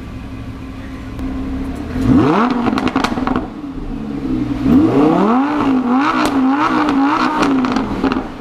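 Lamborghini Huracán V10 idling, then revved: one quick rev about two seconds in that drops back, then from about halfway a rev followed by a string of quick blips. The exhaust pops and crackles as the revs fall.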